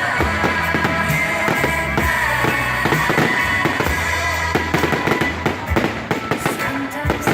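Fireworks going off in rapid, dense bangs and crackles, thickening from about halfway through, over music with sustained tones and a steady bass.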